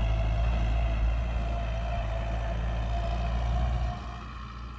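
New Holland TT4030 tractor engine running steadily, its sound dropping noticeably about four seconds in.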